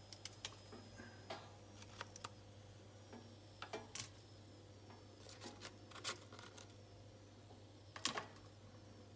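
Scattered light clicks and taps as cooked samosas are lifted off the Ninja Foodi air fryer's metal rack and tray, the sharpest knocks about four and eight seconds in, over a steady low hum.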